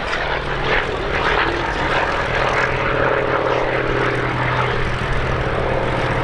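Hawker Sea Fury's radial piston engine droning steadily in flight, a deep, continuous propeller-aircraft hum.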